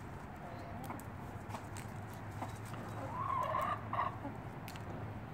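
Hens clucking, with a longer wavering call about three seconds in that is the loudest part. Scattered light taps run under it as the hens peck popcorn off paving stones.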